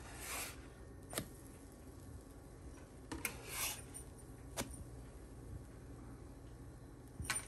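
A spatula slides under pancakes on a nonstick pan and flips them. There are two short scraping swishes and several light taps and clicks of the spatula against the pan, the last a quick double tap near the end.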